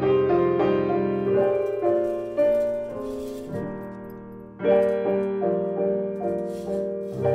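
Piano music: single notes and chords that ring and fade, dying down before a new chord is struck about four and a half seconds in.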